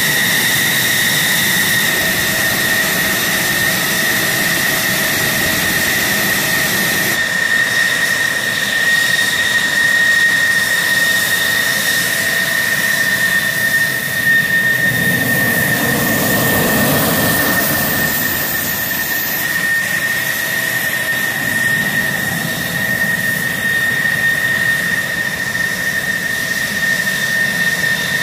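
F-16 Fighting Falcon jet engines running at taxi power: a steady high turbine whine over rushing exhaust. Midway through, a deeper rush swells and fades as a jet taxis past.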